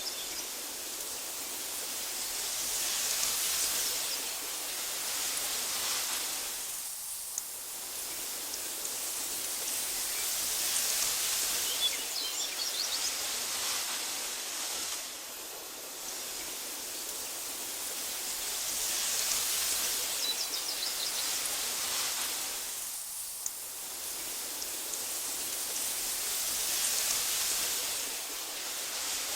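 Wind blowing through tall meadow grass, a soft rushing hiss that swells and eases in slow gusts about every eight seconds. A few faint high chirps come through it.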